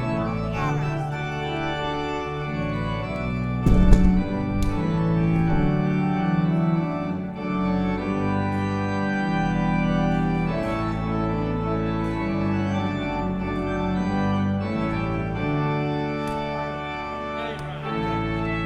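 Church organ playing a hymn in sustained chords that change every second or so, with a brief low thump about four seconds in.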